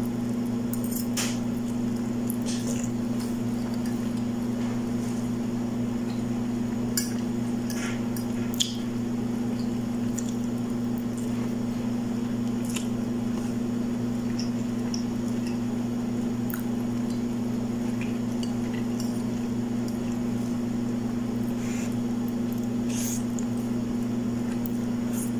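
A person eating noodles with a metal fork: scattered light clicks and scrapes of the fork on a ceramic plate and soft chewing, over a steady low hum.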